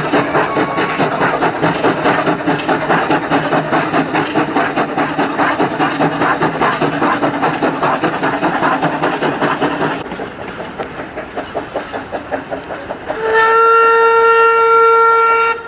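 Queensland Railways C17-class 4-8-0 steam locomotive working past with a steady run of rapid exhaust chuffs. About ten seconds in the chuffing drops to a quieter level, and near the end the engine's steam whistle sounds one long steady note for about two seconds, the loudest thing heard.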